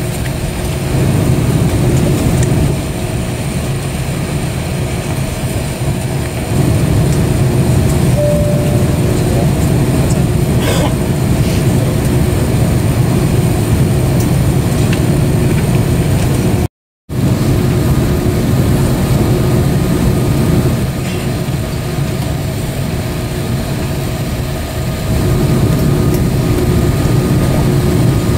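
Steady low drone inside the cabin of a parked Airbus A330-200: the airliner's air-conditioning and ventilation running. The sound cuts out for a moment a little past halfway.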